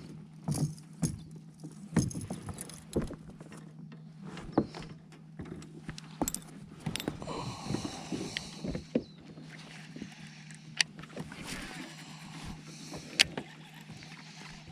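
Scattered knocks, clicks and rattles of fishing gear being handled in a boat, over a steady low hum.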